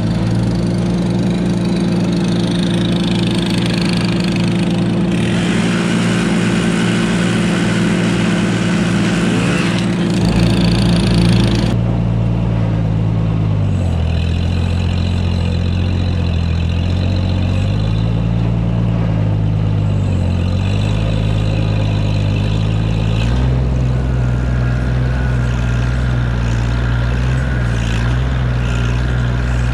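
Tractor engine running steadily. About twelve seconds in its pitch drops and then rises and falls several times; for the first dozen seconds a harsher hiss rides over it.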